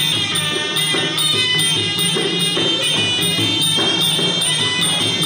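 Traditional Khmer boxing music (pleng prodal): a reed oboe holds a high, sustained melody over steady hand drums and small cymbals keeping an even beat.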